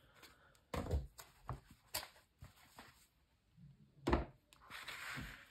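Handling noise as a strip of lace is laid over a small handmade paper notebook on a cutting mat: a series of light knocks and taps, the loudest about four seconds in, followed by a short rustle.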